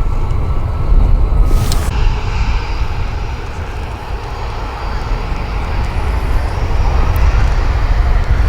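Jet airliner's engines rumbling steadily as the plane slows on the runway just after landing. There is a brief click about two seconds in.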